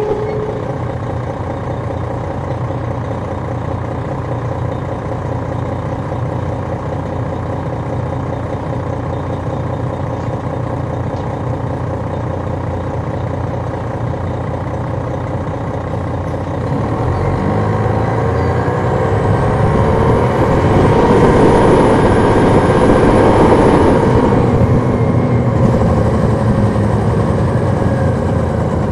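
Detroit Diesel Series 60 inline-six diesel of a 2002 MCI D4000 coach, heard from on board, running steadily. Past the halfway point it revs up and grows louder, with a high whine, then eases off near the end.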